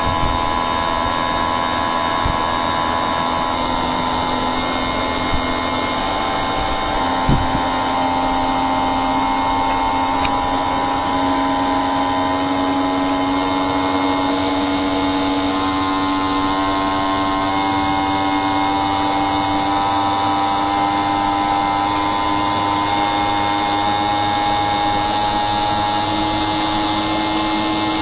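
Inverter air conditioner running with a steady multi-tone electric whine whose pitch creeps upward in small steps, a sign that its speed is ramping up. There is a sharp click about seven seconds in, where the pitch steps up.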